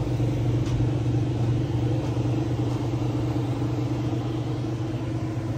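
Steady low mechanical hum, like a motor or engine running, with no change in pitch or level.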